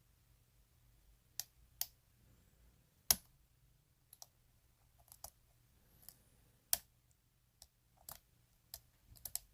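Lock pick working the pins of a Euro cylinder lock during single-pin picking: scattered sharp metallic clicks as pins are lifted and set under tension, loudest about 3 s and 7 s in, with a quick run of clicks near the end.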